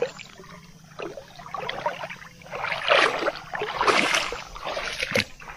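Shallow water splashing and sloshing around a mesh keep net holding caught tilapia as it is moved through the water, with two louder splashes about three and four seconds in.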